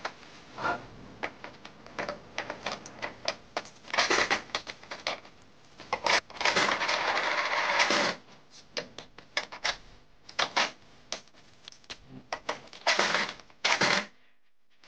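Plastic clicks, taps and rattles of a Robocar Poli toy police-car coin bank being handled, with a coin knocking against it. There are scattered single clicks and a longer rattling stretch of about two seconds in the middle.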